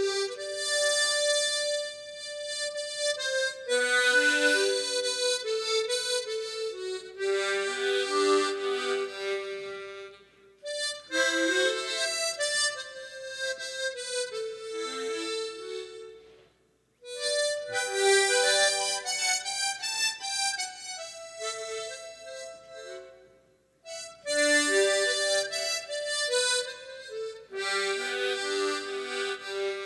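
Harmonica playing a slow song melody, phrase by phrase, with brief breaks between phrases.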